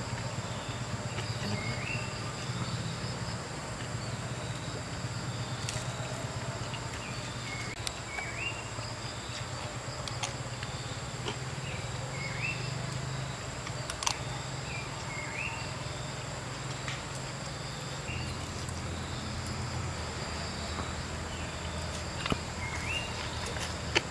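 Forest ambience: a bird repeats a short rising call every couple of seconds over a steady high insect drone and a low hum, with a few scattered light clicks.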